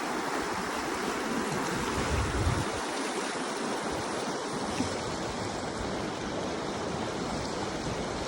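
The Gunnison River rushing, a steady wash of moving water.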